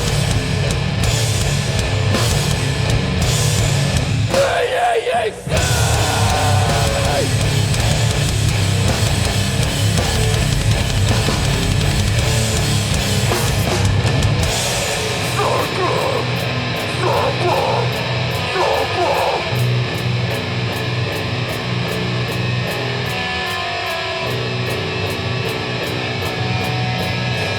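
Live heavy hardcore band playing loud, with heavily distorted low guitars and drums. About five seconds in it breaks off briefly. About halfway through it moves into a new section, possibly a new song, with a fast, even cymbal beat.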